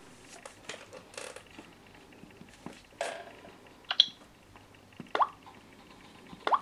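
A few short, separate clicks and taps about a second apart as fingers press a Samsung Galaxy S3's home button and tap its touchscreen on a wooden table, one of them with a brief high tone.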